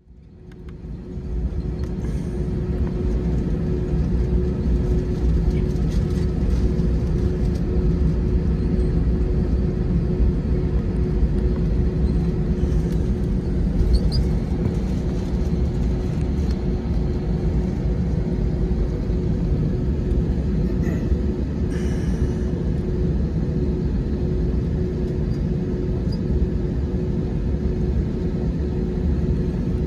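Steady cabin hum of an Airbus A321 at the gate: a low air-conditioning rumble with one steady mid-pitched tone, fading in over the first two seconds, with a few faint clicks.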